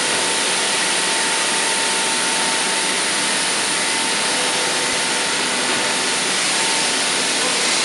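Woodworking factory machinery running steadily: an even rushing noise with a thin constant whine through it.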